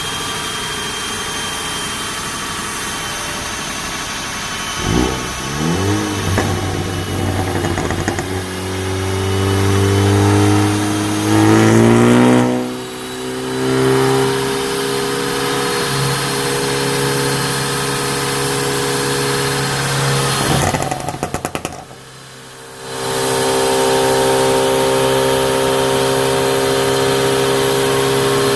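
Stage 3 tuned Ford Focus ST MK3's turbocharged 2.0-litre four-cylinder on a dyno. About five seconds in the revs climb in rising steps until about thirteen seconds in, and then the engine holds a steady note. About twenty-one seconds in there is a short run of rapid exhaust crackles and pops from its crackle map, before the steady note returns.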